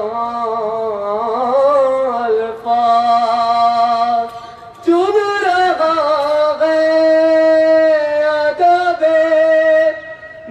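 A man's solo voice chanting unaccompanied Urdu devotional verse, drawing out long held notes, with a short pause for breath about halfway through.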